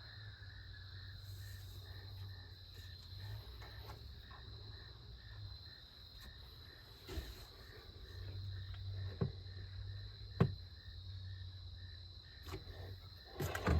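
Faint, steady chirping of insects, with a low hum underneath. A few sharp clicks, from hand work on the cart, come about halfway through and near the end.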